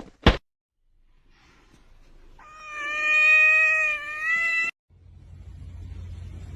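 A cat's single long, drawn-out meow lasting about two seconds, holding a steady pitch and cut off abruptly. A short click comes just before it, and a low steady hum follows.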